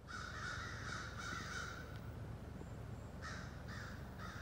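A crow cawing: a quick run of harsh caws in the first two seconds, then three separate caws near the end.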